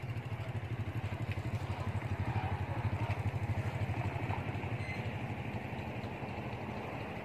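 A small engine idling with an even, low throb that swells a little in the middle and then eases.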